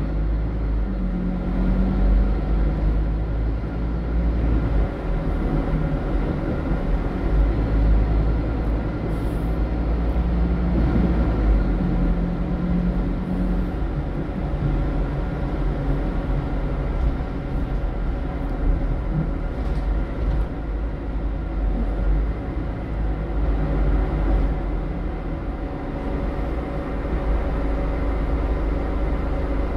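Inside a Scania single-deck bus on the move: the diesel engine's steady low rumble with drivetrain hum and road noise. A higher engine tone steps up and back down briefly, about a second in and again about ten seconds in.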